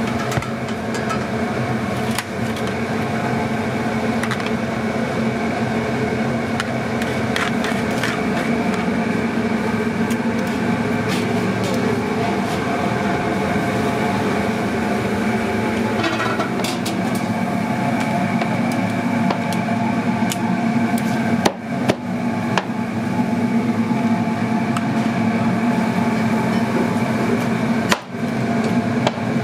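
Steady drone of commercial kitchen equipment, with scattered clinks and knocks of metal tongs and utensils.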